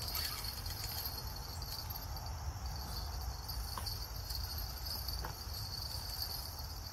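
Steady high-pitched chirring of insects, with a low rumble underneath and a few faint clicks.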